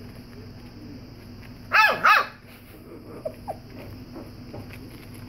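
A young puppy barking twice in quick succession: two short, high-pitched barks that rise and fall in pitch, followed about a second later by two faint yips. The puppy has only just started to bark.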